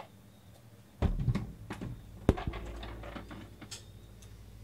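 Clicks, rustling and knocks of things being handled and set down on a desk, with one sharp knock a little after two seconds in.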